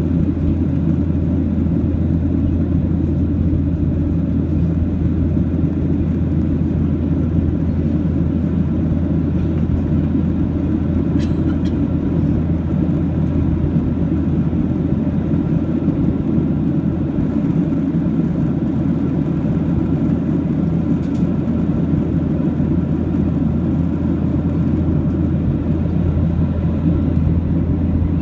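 Steady cabin noise inside a Boeing 737-700 in flight: its CFM56-7B jet engines and the airflow over the fuselage make a deep, even drone that does not change.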